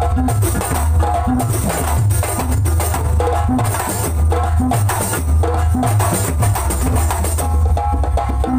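Kuntulan percussion ensemble playing a fast, dense rhythm: a row of hand-struck rebana frame drums over deep, booming bass drums and a barrel drum, without a break.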